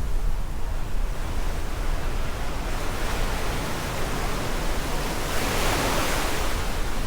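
Rough Black Sea surf: a steady rushing wash under a low rumble, with one wave breaking and surging louder about five and a half seconds in.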